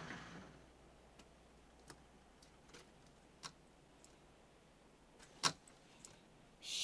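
A stuck car's engine and spinning wheels die away at the very start, leaving a hush broken by faint scattered clicks and ticks. One sharper click comes about five and a half seconds in, and a short hiss comes at the very end.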